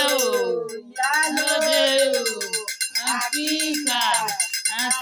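A voice singing a chant-like song over a quick, steady shaker rhythm, with a brief break in the singing about a second in.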